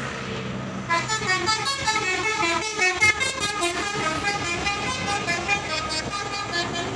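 Bus 'telolet basuri' musical horn, a set of tuned trumpet horns, playing a quick melody of many stepping notes. It starts about a second in, after a low steady hum.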